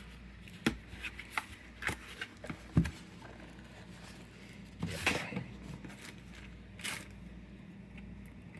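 Packaging being handled while a product box is pried at one-handed to open its tab: scattered taps and clicks, most of them in the first three seconds, a brief rustle about five seconds in and one more click near the end.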